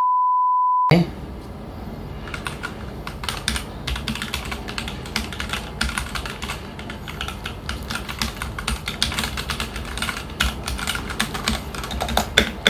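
A steady electronic beep for about the first second. Then a Keychron K12 mechanical keyboard with red linear switches is typed on continuously, giving dense, irregular key clacks that come faster and louder near the end.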